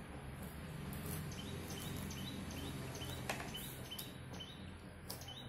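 Kitchen shears snipping a raw squid tube into rings: a few short, sharp cuts, the clearest about three seconds in. Underneath runs a steady low hum and a faint short chirp repeating about twice a second.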